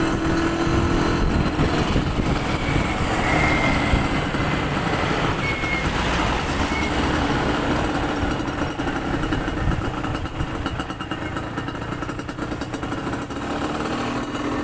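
Yamaha DT125's two-stroke single-cylinder engine running as the restored bike is ridden on a test ride, a continuous engine note with rushing noise over it.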